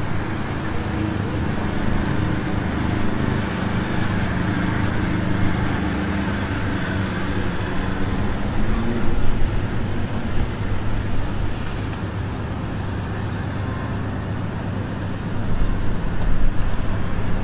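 Road traffic noise from a busy street: a steady rush of passing cars, with a low engine drone that is strongest in the first half and fades about halfway through.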